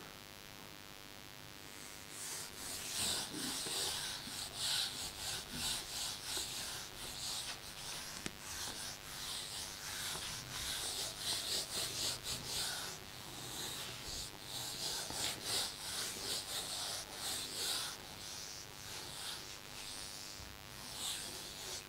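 Whiteboard eraser wiping marker writing off a whiteboard in many quick back-and-forth strokes, starting about two seconds in and stopping shortly before the end.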